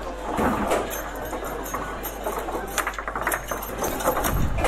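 Table football in play: the ball clicking off the players and the table walls, and the rods rattling as they are slid and spun, with many scattered sharp clacks.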